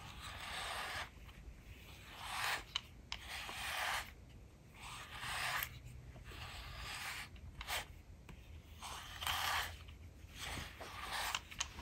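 Slicker brush raking through a cat's fur in long strokes: a soft, scratchy rasp repeated about seven times, each stroke about a second long with short pauses between.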